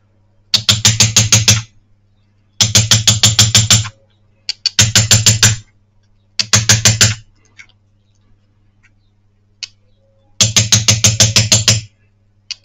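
Small hammer tapping rapidly on gold wire laid into cross-hatched steel, setting the gold inlay of a damascene pendant, with the piece resting on a metal block. It comes in five bursts of about ten quick strikes each, with short pauses between them, over a faint steady hum.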